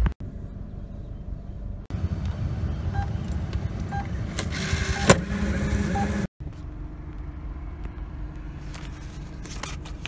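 Car cabin sound: a steady low engine and road rumble, with a few short beeps and a brief rushing noise that ends in a sharp click about five seconds in.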